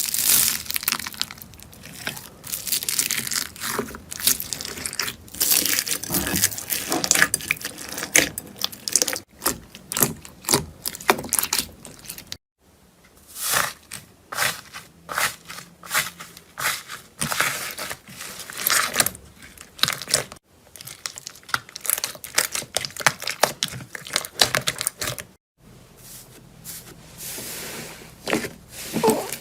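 Slime being squeezed, poked and stretched by hand, giving dense crackling, crunching and tearing sounds. Brief drop-outs about twelve and twenty-five seconds in split it into three clips.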